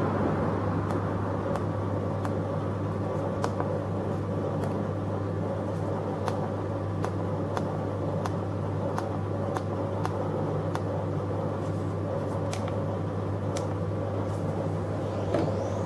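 Steady electrical hum from a CNC router, with soft clicks of keys being pressed on its handheld controller at irregular intervals. Near the end a high whine rises quickly and levels off as the spindle starts up.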